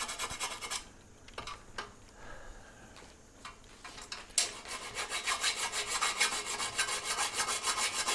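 A 6-inch flat file rasping on the edge of a rectangular cutout in a soft aluminium panel, in quick back-and-forth strokes. The filing pauses about a second in, leaving only a few light taps, and starts again a little over four seconds in.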